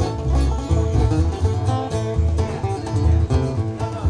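Live bluegrass band playing an instrumental passage: banjo, mandolin and acoustic guitars picking over a steady upright bass line.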